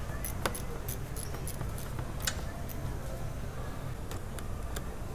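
Scattered light metallic clicks and taps as hand tools are handled against the car's underside and front suspension, irregular and spaced out, over a steady low hum.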